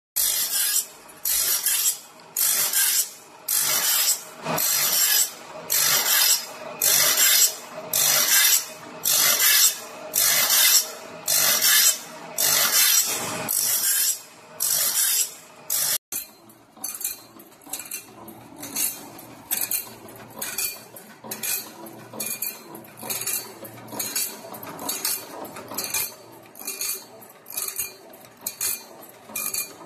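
1115G automatic saw blade sharpening machine grinding a band saw blade tooth by tooth: a rasping grind as the abrasive wheel meets each tooth, about once a second. After about 16 s the grinds come quicker and quieter.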